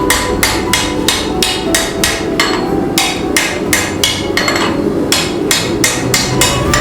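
Hammer striking a bar of 5160 spring steel on an anvil, a steady run of blows about three a second with a faint metallic ring, pausing briefly twice: forging and straightening a sword blade.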